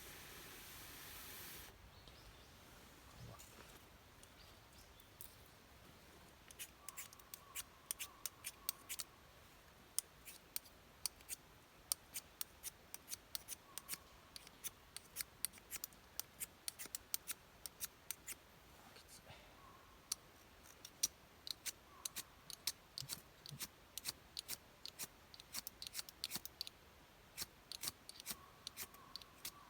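Campfire crackling: faint, irregular sharp pops and ticks, several a second, starting a few seconds in.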